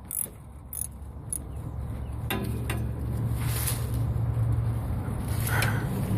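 A few sharp metallic clicks and knocks from a socket ratchet working on a starter mounting bolt. From about a second and a half in, a steady low hum grows louder under them.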